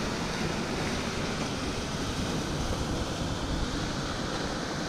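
Ocean surf washing steadily, with gusty wind buffeting the microphone.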